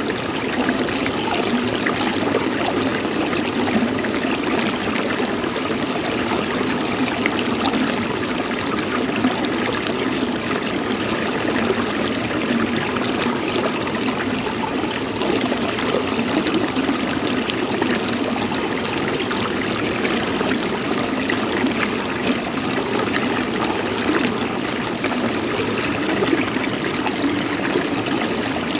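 Steady running water, trickling and babbling with a continuous even flow.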